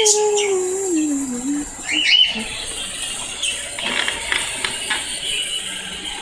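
Pet birds giving short, sharp rising calls, once at the start and again about two seconds in, over the steady high hiss of a Roomba robot vacuum running. A smooth falling tone slides down in the first second and a half, and a few light clicks come near the middle.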